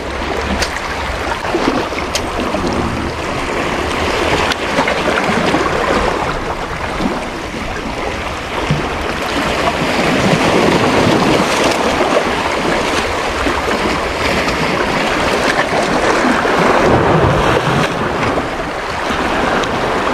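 Sea waves washing against shoreline rocks, a steady rushing noise that swells and eases, with wind on the microphone.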